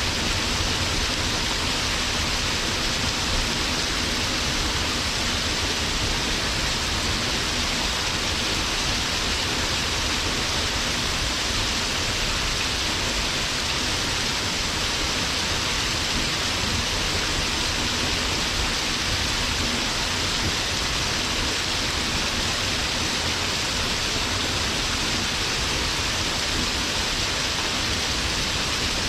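Waterfall pouring steadily onto rock, an unbroken rushing hiss that is strongest in the upper range.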